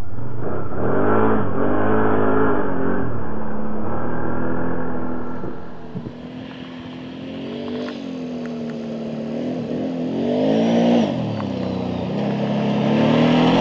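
ATV engine running on a trail, its pitch rising and falling with the throttle. About six seconds in it drops to a quieter ATV engine that swells and falls as it approaches and is loudest near the end.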